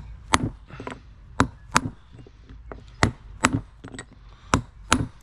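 Small hammer striking a socket held against a sealed wheel bearing, driving it into a motorcycle rear wheel hub: about ten sharp, ringing metal taps, roughly two a second with a short pause in the middle. The bearing is being tapped the last of the way until it seats.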